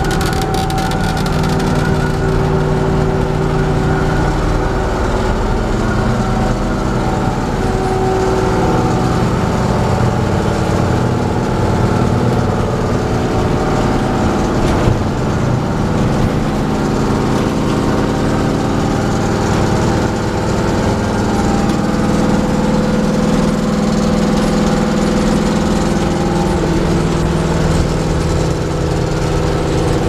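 Engine and road noise inside an old school bus cruising at highway speed: a loud, steady drone whose engine tones drift slowly up and down in pitch.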